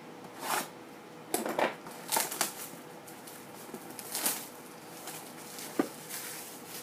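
Clear shrink-wrap being cut and stripped off a sealed cardboard trading-card box, crinkling in several short bursts, with one sharp click near the end.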